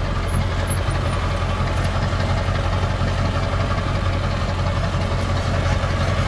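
Pickup truck with a truck camper driving across a sandy beach, its engine running in a steady low drone, heard from inside the cab.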